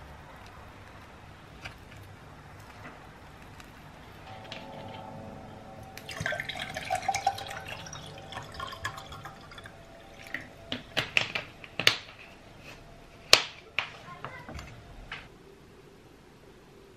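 Water poured from a glass bottle into a glass, a steady splashing pour with a ringing pitch for several seconds. This is followed by a run of sharp clicks and knocks, the loudest about two-thirds of the way through, like glass and crockery set down on a wooden board.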